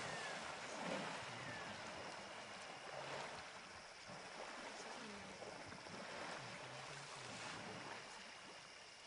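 Water sloshing and splashing from African elephants swimming and playing, heard faintly over a steady hiss, a little louder about a second in.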